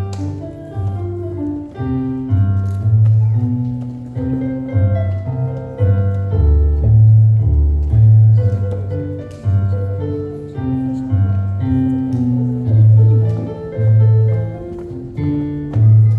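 Solo piano playing a lively tune: an evenly stepping bass line of separate low notes under a melody in the upper register.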